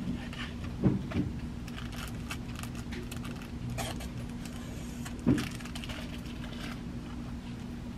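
Shop-floor handling: light clicks and rustles of plastic craft-supply packages being taken off metal pegboard hooks, over a steady low store hum. Two short low thumps, about a second in and just after five seconds, are the loudest sounds.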